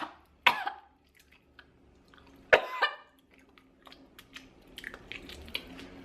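A woman coughing in two short fits, about half a second in and about two and a half seconds in, with faint mouth noises between them.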